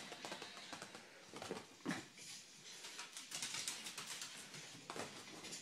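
Faint scattered clicks and pattering of a kitten's and a small dog's paws and claws scampering on a hardwood floor as they tussle over a toy mouse, with one sharper tap about two seconds in.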